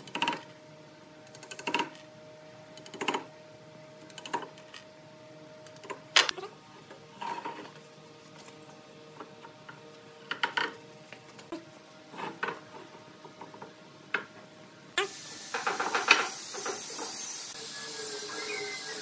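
Wooden knocks from a wooden mallet tapping dowels into the edges of pine boards, and from the boards being knocked into place, one knock every second or two. About fifteen seconds in, a steady hiss rises suddenly, with a quick run of knocks.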